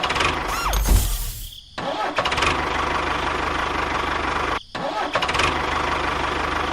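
Engine running with a fast, even chugging pulse and a low rumble. It cuts out briefly twice, near the start and about two-thirds of the way through.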